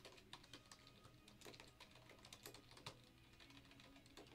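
Faint computer keyboard typing: light key clicks coming at an irregular pace.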